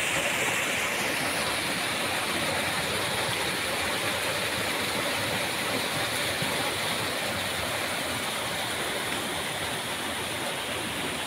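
Water pouring and splashing down a small artificial rock waterfall: a steady rushing sound that eases slightly toward the end.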